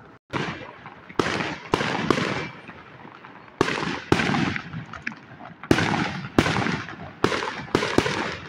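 Aerial fireworks bursting overhead: about a dozen sharp bangs at uneven intervals, several coming in quick pairs, each one trailing off as it fades.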